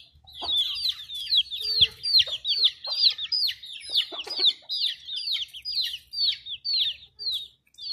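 Young chickens peeping: a steady run of high, downward-sliding peeps, two or three a second, with a couple of lower clucks near the middle.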